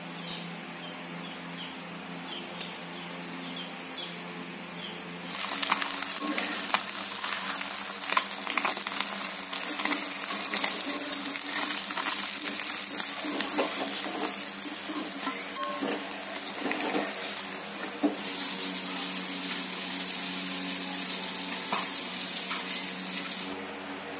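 Pieces of fish frying in hot oil in a black kadai: a loud, dense sizzle with scrapes and clicks of a metal spatula stirring, starting suddenly about five seconds in after faint scraping, and dropping back to a quieter sizzle near the end.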